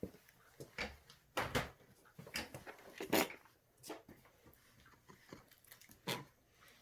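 Three-week-old puppies giving a string of short, irregular squeaks and whimpers, some sliding down in pitch; the loudest comes about three seconds in.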